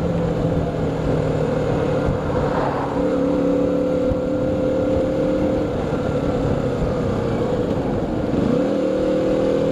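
Motorcycle engine running steadily under the rider, with wind and wet-road noise. The engine note steps up about three seconds in, then drops and climbs again near the end.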